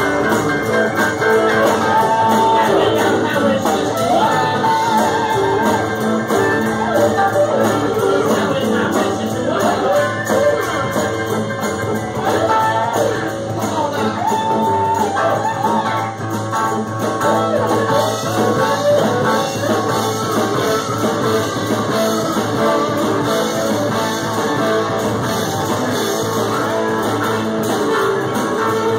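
Live blues-rock band playing: electric guitar, keyboard, horns and drum kit, with a man singing.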